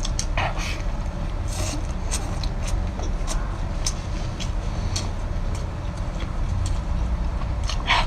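Someone chewing a crispy fried chicken cutlet: irregular sharp crunches and mouth clicks, a few a second, over a steady low rumble.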